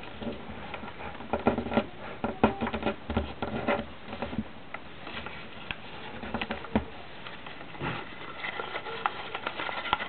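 A square sheet of paper crinkling and rustling between the fingers as it is folded and creased into an origami bird, in irregular small crackles that are busiest in the first half.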